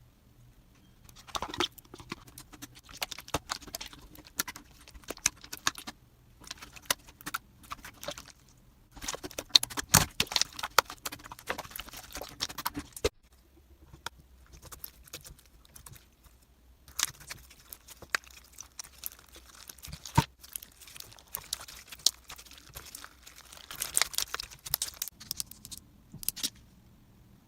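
Rapid clicks, taps and rustling of small objects being handled, coming in clusters with short pauses in between.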